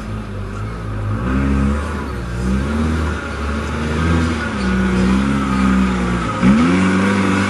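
Off-road Jeep's engine revving up and down repeatedly under load as it crawls up a rock slope, with a quick sharp rev about six and a half seconds in.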